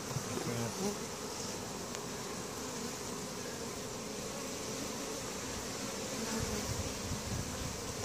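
Steady buzzing of a mass of honey bees over an open, overcrowded hive box.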